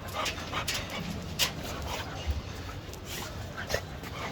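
A dog whimpering in a string of short, high whines.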